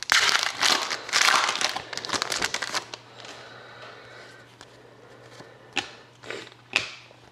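A foil trading-card pack wrapper being torn open and crinkled for about the first three seconds, then quieter handling of the cards with a few short clicks near the end.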